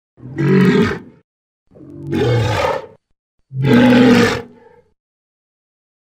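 Creature roar sound effect: three roars of about a second each, separated by short silences, their pitch rising and falling within each roar.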